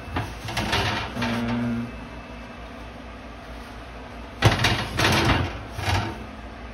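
Paper towel rubbing and scraping over a wire oven rack and the oven floor, in a few scratchy bursts, the loudest about four and a half to six seconds in.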